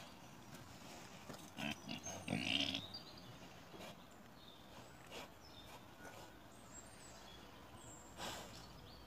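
Wild boar grunting and sniffing as it roots for food on the ground: a few short sounds between about one and three seconds in, the loudest near the middle of that run, then fainter scattered clicks.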